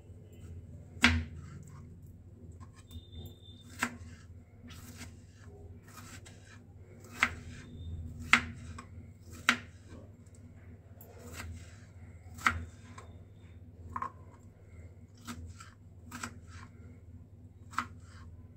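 Kitchen knife chopping peeled tomatoes on a plastic cutting board: about a dozen irregularly spaced sharp taps of the blade striking the board, the loudest about a second in.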